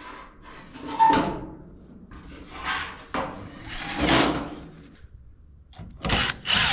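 Sheet-metal dryer parts being handled: three short scraping, sliding clatters. Near the end, a power drill starts running.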